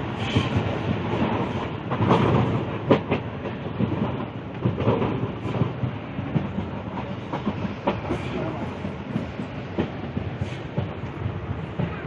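A moving train heard from a carriage window: the steady rumble of the carriage running along the track, with frequent irregular clicks of the wheels over the rail joints, busiest a couple of seconds in.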